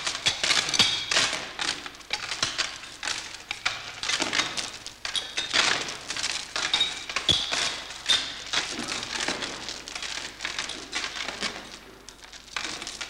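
Heavy metal chain rattling and clinking in uneven surges as it slides down and piles up on the floor: a ghost's chain rattle.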